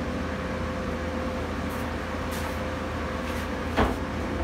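Powder coating booth's exhaust fan running with a steady drone and a steady hum, and one short knock near the end.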